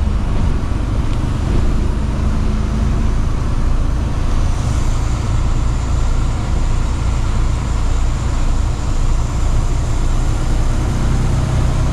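Truck engine and road noise while driving: a steady low drone with tyre and wind hiss, unchanging throughout.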